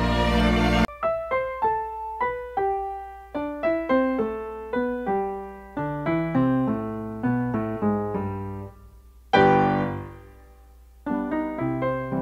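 Background music: a string piece cuts off under a second in, and a solo piano takes over with a melody of single struck notes that die away. A louder chord about nine seconds in rings out and fades before the melody resumes.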